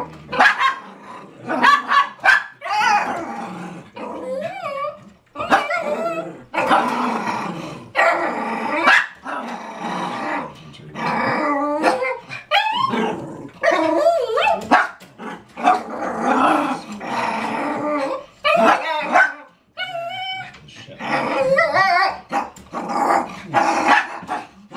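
Small dogs barking, growling and whining excitedly at dogs on a television screen, in a long run of wavering calls broken by short pauses.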